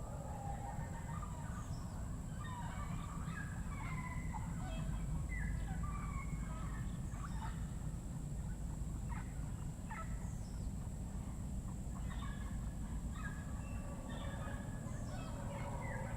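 Tropical rainforest birds calling in a busy chorus of short, chattering notes, many sliding down in pitch, over a steady high-pitched whine and a low background rumble.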